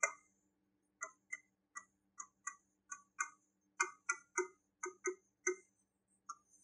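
Pen tip tapping and clicking on an interactive board's screen while writing a word stroke by stroke: about twenty short, sharp clicks at an uneven rate of roughly three a second.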